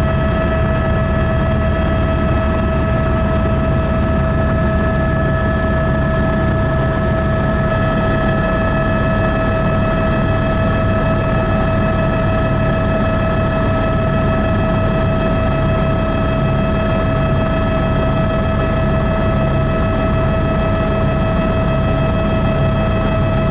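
Helicopter heard from on board in flight: a steady engine whine over the fast low beat of the rotor, running evenly.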